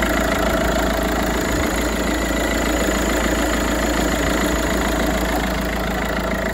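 Peugeot 308's 1.6 HDi four-cylinder turbo-diesel engine idling steadily, heard up close with the bonnet open.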